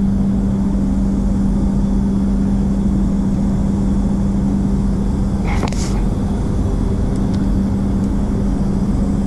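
Steady drone of a spray booth's air-handling fans, with a strong, even hum. One brief noise about five and a half seconds in.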